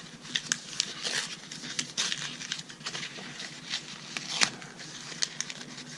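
Hands handling the Moleskine pencil pack, probably to get the pencils out: irregular small clicks and taps over light rustling.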